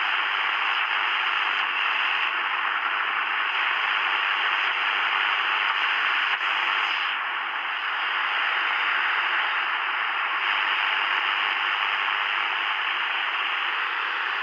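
Sony ICF-SW10 analogue shortwave receiver giving out a steady static hiss from its speaker, tuned between stations with no signal coming through.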